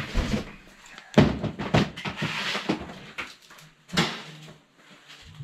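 Plastic storage bins and household items being handled and set down: a series of knocks and rustles, the loudest a little over a second in and another sharp knock about four seconds in.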